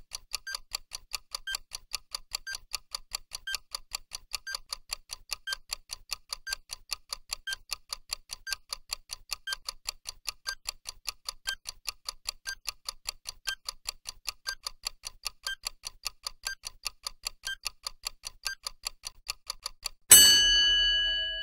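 Countdown-timer clock ticking sound effect: rapid, even ticks. Near the end, as the timer reaches zero, a loud ringing tone sounds and fades.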